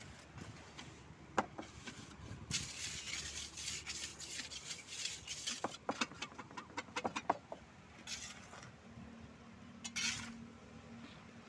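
A wooden strip scraping and levelling damp cement-and-sand mix across a metal tile mould, gritty and rasping, with a series of sharp clicks and knocks against the metal frame. Near the end, a scoop of dry mix is tipped onto the mould with a brief sandy rush.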